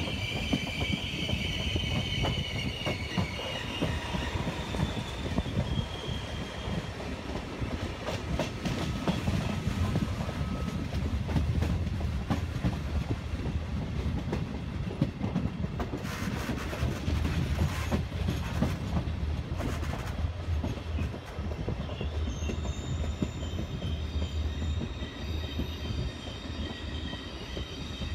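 Regional passenger train running slowly into a station, heard from the train itself: a steady low rumble of wheels on rail with scattered clicks over joints and points. High-pitched wheel squeal sounds at the start and again over the last several seconds as the train draws along the platform.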